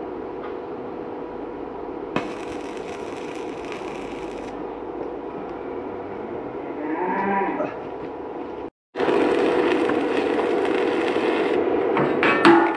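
Arc welding at a steel post: the electrode's arc crackles and hisses in two runs of a few seconds each, with a steady hum underneath. A cow moos once between the two runs.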